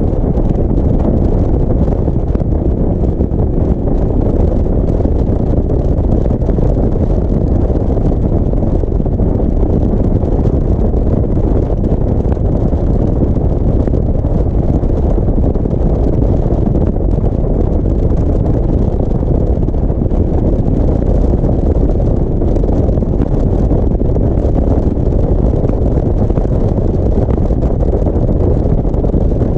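Steady wind rumble on the microphone of a motorcycle-mounted camera at road speed, blended with the motorcycle's engine and road noise.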